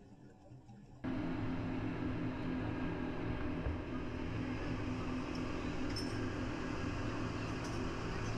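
Speedboat engines running under way, a steady drone with the hiss of wake and wind, cutting in suddenly about a second in after faint music. A few light clinks, likely scuba tanks, sound near the middle.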